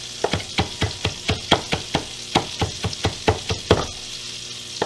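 Chef's knife chopping fresh mint on a wooden cutting board: quick knocks of the blade on the board, about three to four a second, thinning out near the end.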